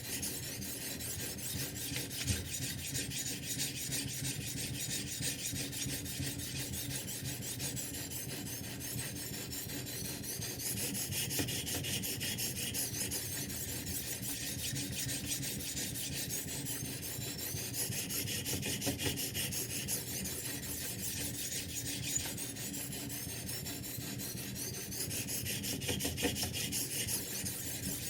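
Sharpening stone on a Ruixin Pro 3 guided-rod knife sharpener, rasping back and forth over a steel kitchen-knife edge in continuous strokes. A slightly brighter swell in the scraping comes every seven seconds or so.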